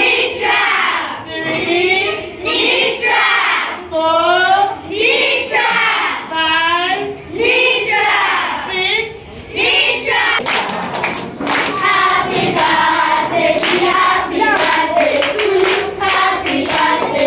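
Children and teachers singing a birthday song together. Rhythmic hand clapping joins the singing about ten seconds in.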